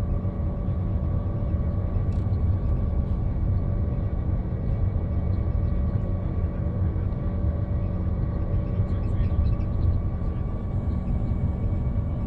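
Neoplan double-decker coach running at motorway speed, heard from inside the passenger cabin: a steady engine drone and low road rumble.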